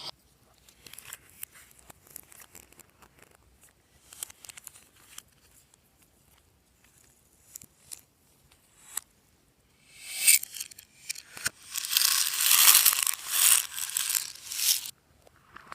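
Glossy slime being handled and mixed: scattered small sticky clicks, then a loud, dense run of crackling for about five seconds starting ten seconds in.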